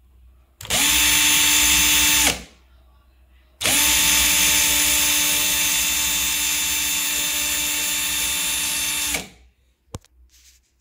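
Parkside cordless drill's motor running free with no load at steady speed, twice: a short burst of under two seconds, then a longer run of about five and a half seconds. It is running on its freshly repaired battery pack, a sign the pack works again. A short knock comes near the end.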